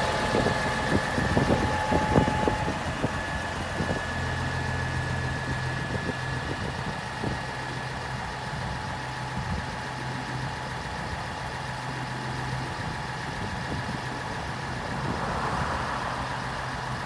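Massey Ferguson 6465 tractor's diesel engine idling steadily, with a thin whine over it that stops a couple of seconds in.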